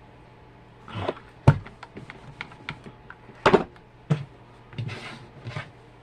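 A run of irregular clicks and knocks, small hard objects handled and set down, the sharpest about a second and a half in and another strong one near the middle, with a couple of short rustling scrapes near the end.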